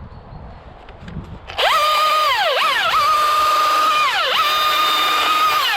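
Two-stroke chainsaw opening up to full revs about a second and a half in. Its pitch dips sharply and climbs back twice, then falls away as the throttle is released near the end.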